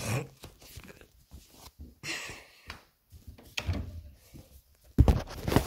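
Handling noise of a phone being carried and put into a cupboard: scattered knocks and rustles, then loud bangs near the end as the cupboard door is shut on it.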